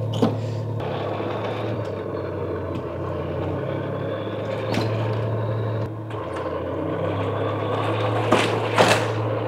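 A 1/8-scale all-metal Heng Long Tiger 1 RC tank driving out of its crate onto a rubber ramp: a steady mechanical drone that changes level a few times as it moves, with a knock about halfway through and two more near the end.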